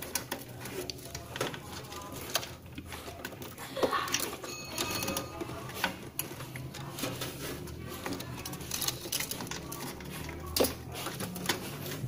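Scattered clicks and knocks of hands handling components and cables inside an open desktop PC case.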